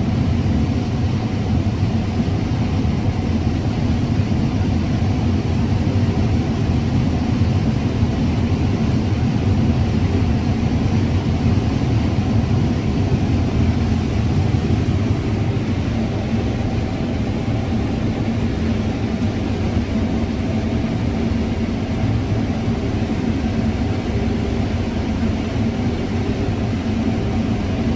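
Combine harvester running steadily while harvesting corn, heard from inside the cab: an even low rumble with a faint steady engine hum.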